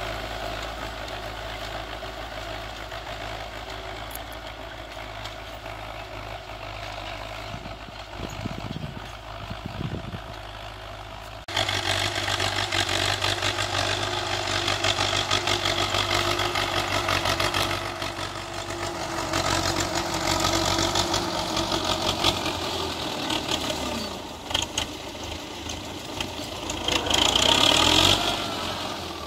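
Belarus tractor's diesel engine running steadily under load as it pulls a disc harrow over ploughed ground. The sound gets suddenly louder about a third of the way in and is loudest near the end as the tractor passes close by.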